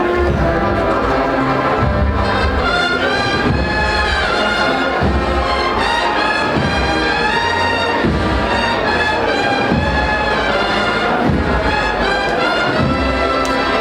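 A Spanish Holy Week agrupación musical, a marching band of cornets, trumpets and trombones with drums, playing a processional march, with repeated bass drum beats under the brass melody.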